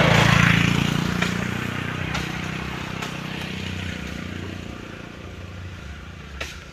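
A motorcycle engine passes close by, loudest at first and then fading steadily as it moves away. A few sharp knocks are heard over it.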